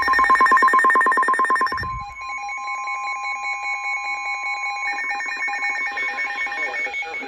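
Emergency alert tones from a NOAA Weather Radio broadcast, signalling a severe thunderstorm warning. A rapidly pulsing electronic tone is loudest for about two seconds, then softer and steadier, then pulsing again from about five seconds in until it stops near the end.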